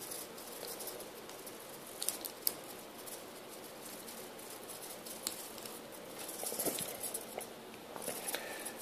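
Faint handling noise of a micro RC helicopter and its small plastic parts: scattered light clicks and taps, a couple about two seconds in and a cluster near the end.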